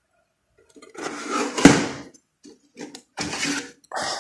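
Metal-framed circuit board panel in an electronics rack being handled and swung open: scraping and rattling, with one sharp metallic knock about a second and a half in and a few shorter clatters after it.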